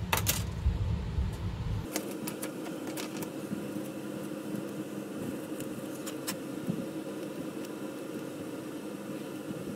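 Steady background hum. A few light clicks and rustles come in the first few seconds as small strips of masking tape are handled.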